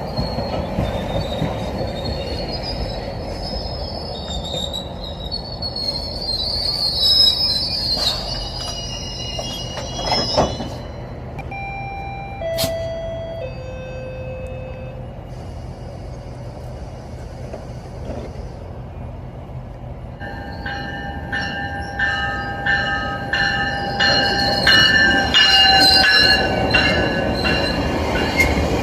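GO Transit commuter train running, its wheels squealing high on the rails. In the last several seconds a rapid, regular clatter comes in under the squeal.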